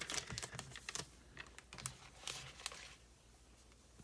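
Thin plastic protective film crinkling and crackling as it is peeled off and handled. A fast run of light crackles thins out after about three seconds.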